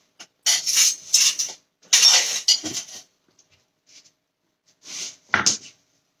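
Kitchen utensils and dishes handled: two clattering, rustling stretches of about a second each, then a short knock with a light clink near the end.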